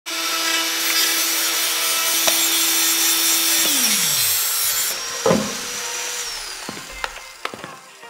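FEIN MultiMaster cordless oscillating multi-tools working wood: a steady hum under a rasping, sawing noise. A little over three and a half seconds in, one tool is switched off and its pitch falls away. A second motor runs on until about six seconds in and then winds down, with a knock just after five seconds and a few light clicks near the end.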